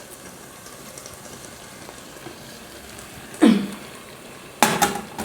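Chicken stew simmering in a pot on the stove, a soft steady sizzle. About three and a half seconds in there is a brief falling tone, and near the end a louder, noisier burst of clatter and sizzling.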